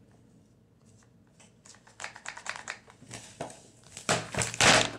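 Cardboard board book being handled on a table: a run of light clicks and scrapes, then a louder rustle and knock as the book is closed and moved near the end.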